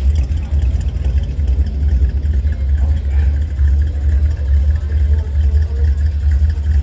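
Steady, loud low rumble with faint voices in the background.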